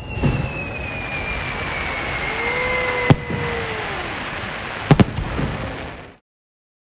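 Fireworks display: a long whistle sliding slowly down in pitch ends in a sharp bang about three seconds in, then two bangs in quick succession about five seconds in, over a steady hiss. The sound cuts off abruptly near the end.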